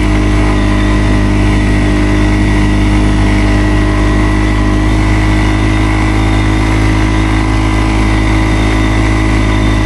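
ATV engine running at a steady, unchanging speed.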